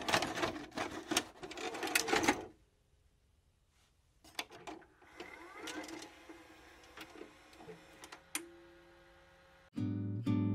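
A VCR's tape mechanism clicking and clattering as a cassette loads. It comes in two spells with a short quiet gap between them, the second softer and ending in a brief rising whir and a steady hum. Strummed acoustic guitar music starts near the end.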